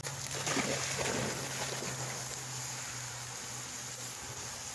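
A Rottweiler splashing as it wades into a shallow creek and swims, with a cluster of splashes in the first second or so. A steady low hum runs underneath.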